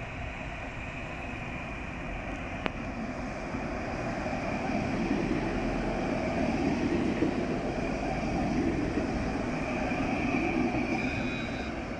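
Alstom Citadis low-floor tram passing close by, its wheel-and-motor rumble swelling to a peak through the middle and easing off near the end, over a steady high whine.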